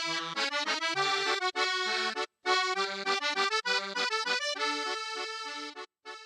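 Background music: an accordion-like reed instrument playing a melody in quick notes, breaking off briefly once and stopping abruptly near the end.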